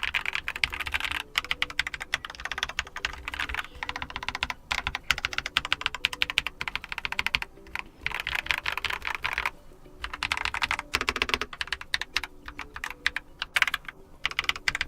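Fast typing on a Keychron K2 QMK mechanical keyboard with brown tactile Keychron Super Switches, factory-lubricated. The keystrokes come in quick runs broken by short pauses.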